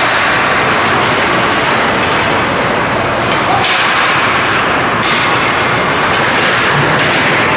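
Ice hockey play on an indoor rink: a steady loud hiss of skates on the ice, broken by a few sharp clacks of sticks and puck, the clearest about a second in, at three and a half seconds and at five seconds.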